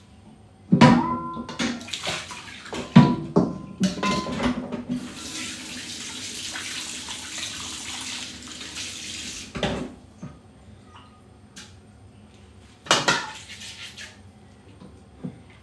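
Kitchen tap running for about four seconds. Before it come several sharp clanks of metal kitchenware with a short ringing tone, and two more knocks follow after the water stops.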